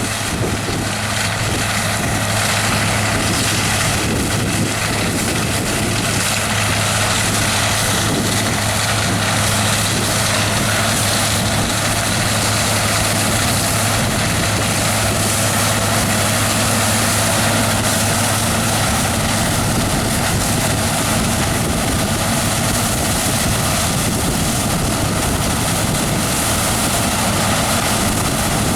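John Deere S680 combine harvester running steadily under harvesting load, a constant machine drone with a steady low hum.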